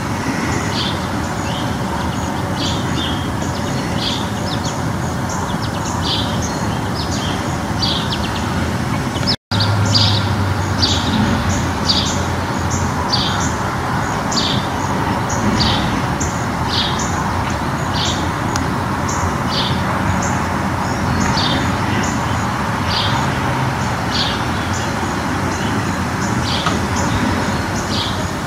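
Songbirds singing, a string of short, sharp, high notes repeating about once a second, over a steady rushing background noise. The sound cuts out for an instant about nine seconds in.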